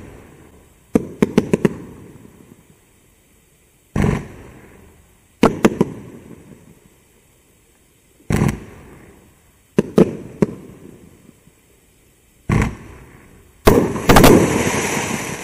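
A 30-shot 500-gram firework cake firing single shots a second and a half to three seconds apart, each a sudden thump with sharp cracks and a fading crackle of strobe stars. The loudest shot comes near the end, with several quick cracks and a dense crackling tail.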